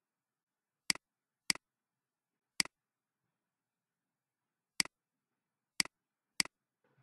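Six separate computer mouse clicks, each a sharp press followed by a quick release, irregularly spaced: three in the first three seconds and three more from about five seconds in.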